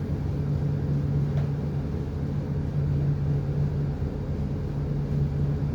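Ship's engine running steadily, a low even drone heard on board.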